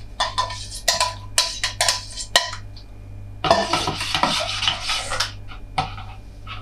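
A utensil clinking and scraping against a mixing bowl as a liquid egg-and-kefir mixture is stirred. Irregular clinks give way to a busier stretch of scraping about halfway through.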